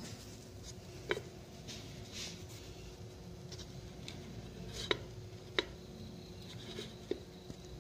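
A few light knocks and taps as paper cups of cake batter are set down inside a metal pressure cooker pot, four or five short clicks spread over several seconds, over a faint steady hum.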